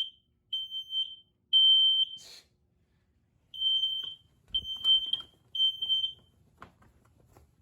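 Smoke alarm sounding in the temporal-three fire pattern: shrill beeps in groups of three with a pause between groups, triggered by test smoke. A few faint knocks and a brief rustle fall between the beeps.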